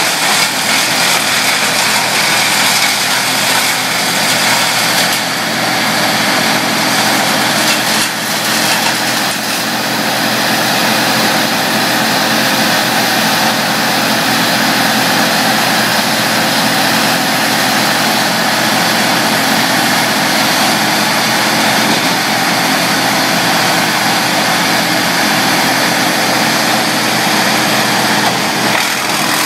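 Towed wood chipper running loud and steady as brush is fed into its hopper.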